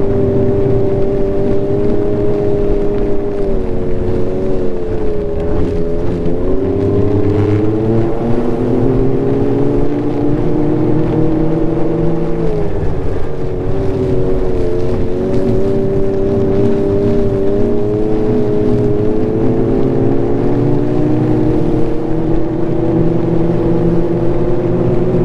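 Ski-Doo Renegade Enduro 900 ACE Turbo snowmobile's turbocharged three-cylinder four-stroke engine running under way. The engine note falls and climbs back twice, about four to six seconds in and again around thirteen seconds, then rises gradually toward the end.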